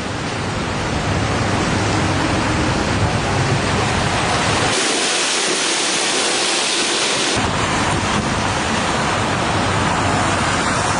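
Hurricane rain and wind, a loud steady hiss with a low rumble underneath. About halfway through, the rumble drops away for a couple of seconds and the hiss turns brighter, then the rumble returns.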